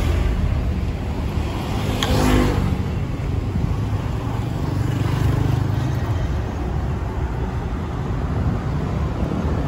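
Road traffic: cars passing on a highway, a steady low rumble that swells as a vehicle goes by around five seconds in. A short click about two seconds in.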